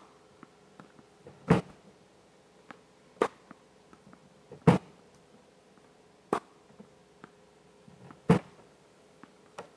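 Tennis balls being fired by a Silent Partner Edge ball machine on random oscillation and hit back with a racket: a series of sharp pops about every one and a half to two seconds, with softer ball bounces between them.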